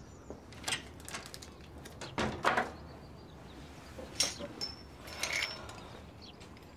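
Camping gear being rummaged through and handled in a cluttered store room: a few scattered knocks, clinks and rustles, with a brief clink about five seconds in.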